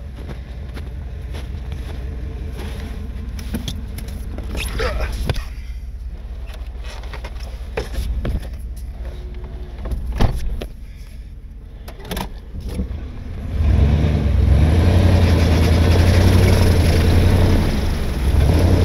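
A Jeep on snow tracks with its engine running low under scattered knocks and clicks. About 14 seconds in the engine pulls much harder and louder as the tracked Jeep drives off through the snow.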